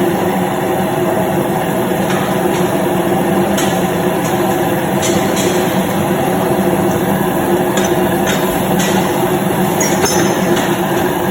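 Automatic forging line running: a steady loud machine drone with a few sharp metallic clinks at irregular moments.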